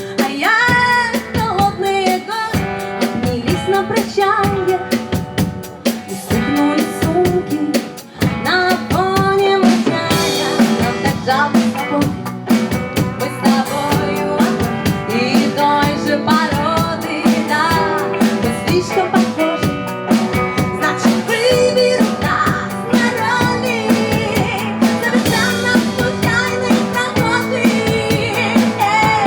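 A song with a full drum kit keeping a steady beat under a gliding melodic lead line.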